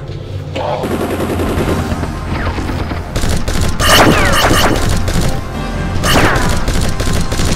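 Rapid gunfire and explosions, a battle effect, growing denser about three seconds in.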